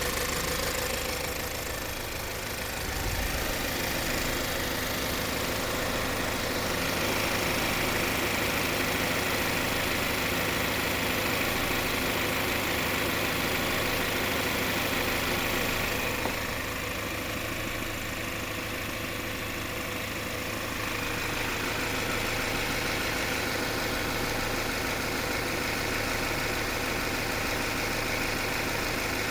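Subaru Forester's CB18 1.8-litre turbocharged boxer-four engine idling steadily as it warms up after a cold start. The knocking it makes when cold is dying away as the engine warms.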